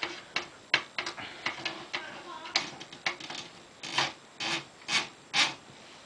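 Platen roller of a 1968 Commodore 2200 portable manual typewriter being worked back into its carriage: a series of clicks and short rasping scrapes of metal and rubber, the loudest four coming close together in the second half.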